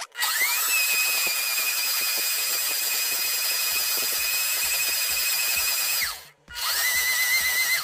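Countertop blender motor spinning up to a steady high whine and running for about six seconds, stopping briefly, then starting again for a short second run at a slightly lower pitch before cutting off. It is grinding salted fish, salted shrimp, fruit, cooked rice and cider into a kimchi seasoning paste.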